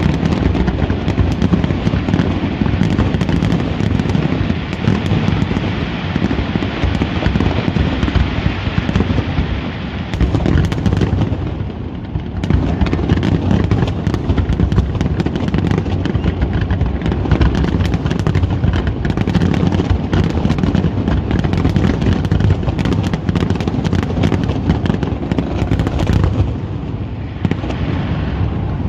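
Large fireworks display going off nonstop: a dense barrage of bangs from bursting aerial shells with crackling in between, easing slightly near the end.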